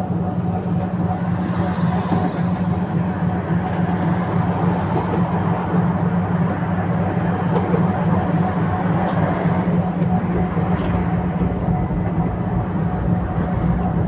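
Tatra T3SU tram running on the track: a steady low hum from the electrical equipment over an even wheel-on-rail rumble, with a faint steady whine above it and a few light clicks.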